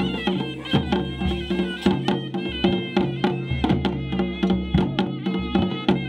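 Himachali folk band playing devta procession music: a reed-pipe melody over a steady drumbeat and clashing brass cymbals.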